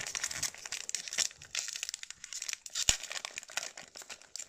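Foil wrapper of a Japanese Pokémon booster pack crinkling and crackling as it is handled and torn open, with one sharper crack about three seconds in.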